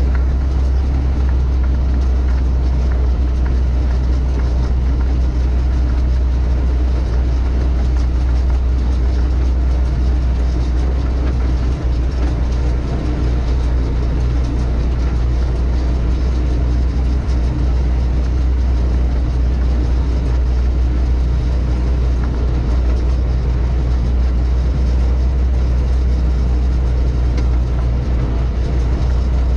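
A tractor's diesel engine running steadily as the tractor drives, heard close from the hood, an even low drone that never breaks.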